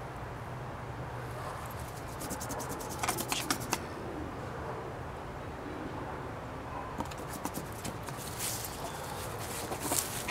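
Scratchy clicks and rustles from a painter at work, his brush on the board and his handling and movement, in two short clusters: one about three seconds in and a longer run from about seven seconds on, over a steady outdoor hiss.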